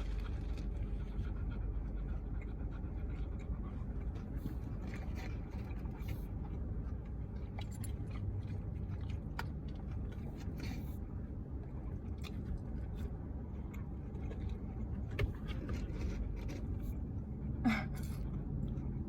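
Quiet eating of a burger and fries, with faint chewing and a few soft clicks and wrapper rustles, over a steady low rumble.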